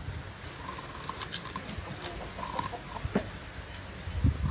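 A dog gnawing and chewing on food, heard as a run of small irregular crunches and clicks.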